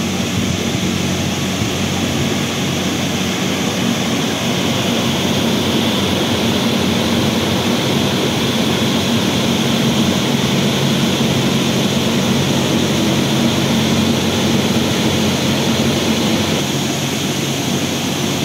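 Belt-driven axial fans of a fin-fan air-cooled heat exchanger running steadily on test: a constant rush of moving air with a steady low hum underneath.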